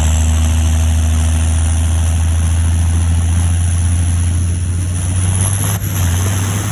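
John Deere 7530 Premium's six-cylinder turbo diesel running steadily under way, a deep drone with a thin, high turbo whistle that slowly rises in pitch.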